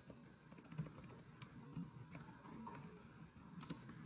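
Faint computer keyboard typing: irregular key clicks, bunched more closely near the end.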